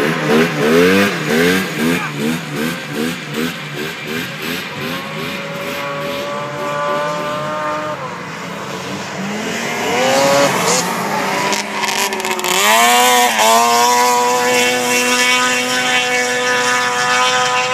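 Racing snowmobile engines at high revs: a rapidly pulsing whine at first, then a steady high whine that dips and climbs again about halfway through.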